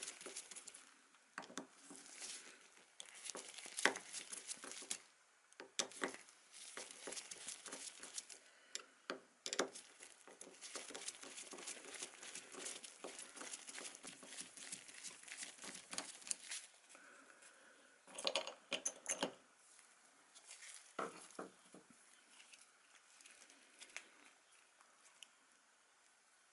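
Irregular rustling, small clicks and taps of hands handling small parts and tools during bench work, busiest in the first two-thirds, with a few sharper clicks later on.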